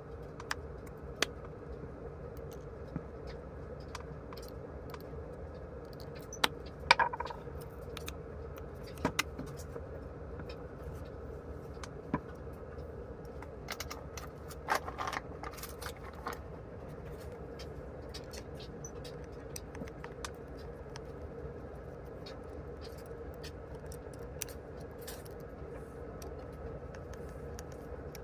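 Scattered small clicks and light metallic clatter of parts and tools being handled, with two short busier bursts, over a steady low hum.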